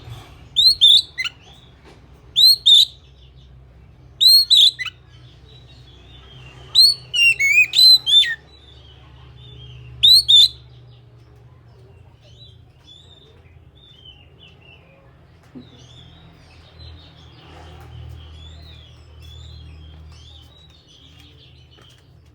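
Oriental magpie-robin (kacer) singing: loud, sharp whistled phrases in five short clusters during the first ten seconds or so, then a quieter, continuous twittering warble.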